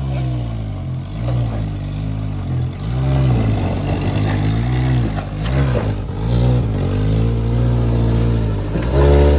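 A 4x4's engine running under load and revving up and down repeatedly, its pitch rising and falling over and over, loudest near the end.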